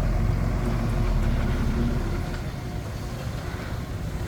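Komatsu D21P bulldozer's diesel engine running with a deep, steady drone, heavier for about the first two seconds and then easing off a little.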